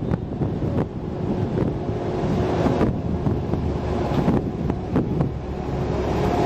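Wind buffeting the camera microphone: a low, rushing rumble that rises and falls, with several brief clicks.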